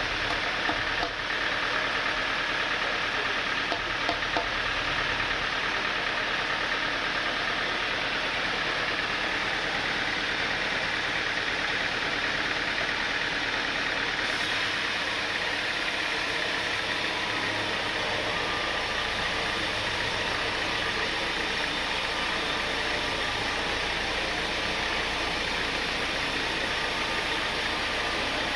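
Sawmill machinery running steadily, a dense, even mechanical noise with a low hum that comes in about two-thirds of the way through.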